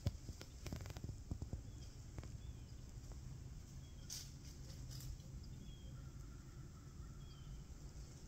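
A deer stepping in dry leaf litter: a few short crunches and rustles in the first couple of seconds and again about four to five seconds in, with faint short bird chirps between.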